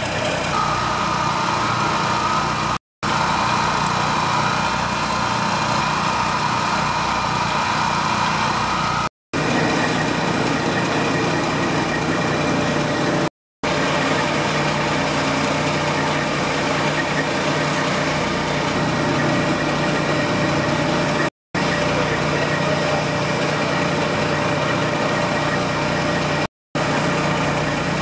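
Fire engine running steadily at the scene with its pump supplying the hose lines: a constant engine drone, broken by several brief silences.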